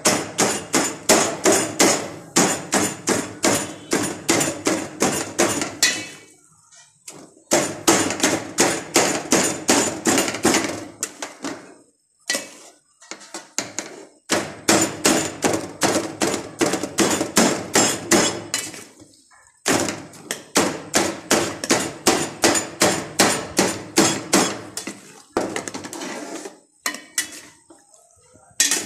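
Metal scraper blade chopping chicken against a flat steel dish: rapid sharp metal clacks, about four a second, in runs of several seconds with short pauses between.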